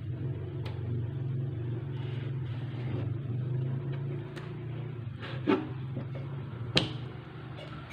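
Kitchen knife slicing raw pork on a plastic cutting board, the blade knocking sharply on the board a few times, most strongly twice in the second half, over a steady low hum.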